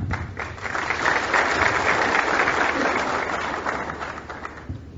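Audience clapping, building up in the first second, holding steady, then dying away near the end.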